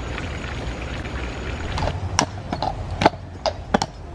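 A steady hiss, then from about two seconds in a horse's hooves clip-clopping on pavement, uneven sharp knocks drawing the horse-drawn carriage nearer.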